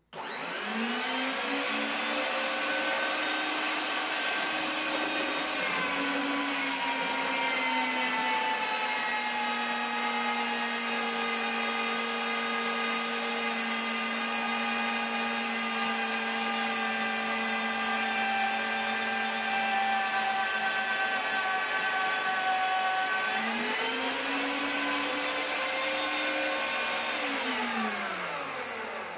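Preenex 1550 W magnetic drill's motor spinning up to a loud, high whine, its pitch sagging slightly about six seconds in as the 13/16-inch annular cutter bites into quarter-inch steel square tubing and then holding steady under load. Near the end the pitch rises again as the load comes off, and the motor winds down with falling pitch when it is switched off.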